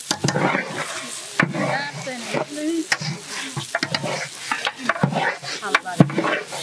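Raw polao rice and whole spices being stirred with a wooden spatula in a large aluminium pot: grainy scraping, with many sharp knocks of the spatula against the metal.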